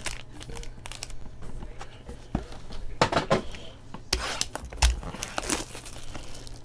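Foil-wrapped trading-card packs and a cardboard card box being handled and set down on a table: a scatter of light clacks and taps with rustling, busiest in the second half.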